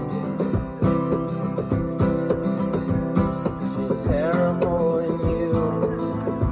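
Acoustic guitar strummed to a steady cajon beat, played live.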